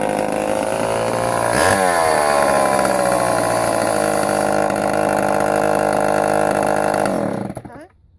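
Homelite 2000 chainsaw's 115 cc two-stroke engine running, its pitch dipping and climbing once about a second and a half in, then holding steady. Near the end it is shut off and winds down to a stop.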